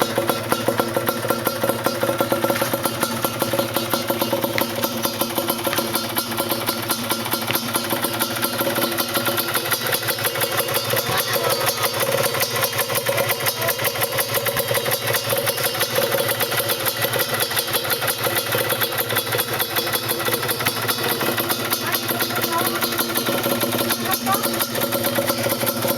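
Yamaha DT 125 two-stroke single-cylinder motorcycle engine idling steadily with a rapid, even beat, not revved.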